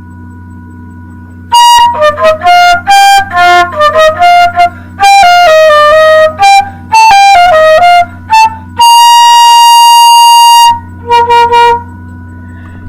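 Solo flute playing a melody of quick single notes, ending on one long held note followed by a few short notes. It is loud and close, with a low steady hum under the quiet gaps at the start and end.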